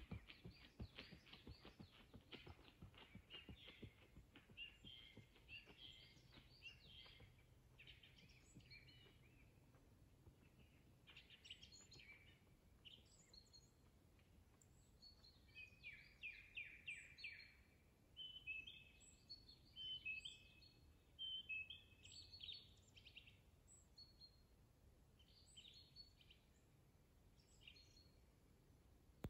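Faint songbirds calling and chirping among the trees, in short scattered phrases and trills. A string of soft taps fades out in the first few seconds.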